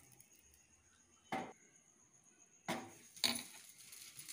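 A spoon knocks three times against the metal pot while stirring thick, cooked ven pongal. The first knock comes about a second in, and the other two come close together near the end.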